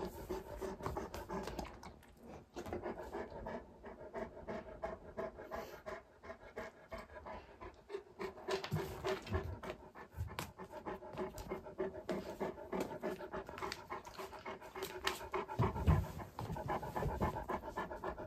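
A Great Pyrenees panting steadily, in quick short breaths, with a low bump near the end.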